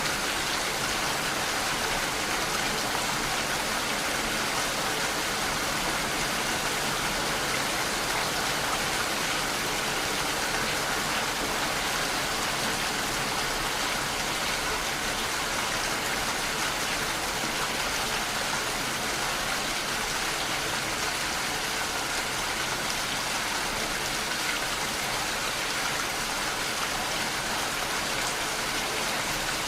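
Steady, even rain falling, a constant hiss with no changes in strength.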